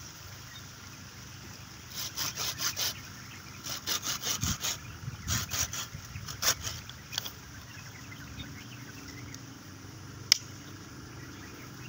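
Hand pruning saw cutting through a cassava stem in short runs of quick back-and-forth strokes, between about two and seven seconds in. A single sharp click comes near the end.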